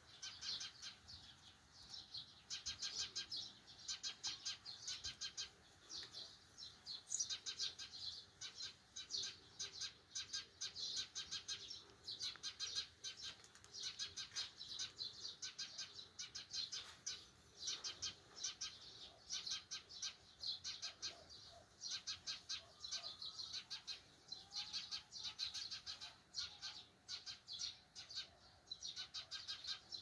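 Eurasian tree sparrows chirping, a dense, continuous run of short, high chirps.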